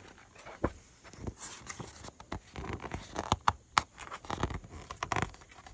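Paper rustling and crackling, with several sharp irregular clicks, as a picture book's page is turned by hand.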